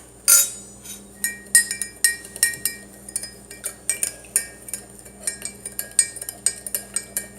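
A spoon stirring in a cup, clinking quickly and unevenly against its side, with a brief ring after each tap; this is plausibly borax being stirred into water. One louder clink comes first, then a steady run of about three or four taps a second.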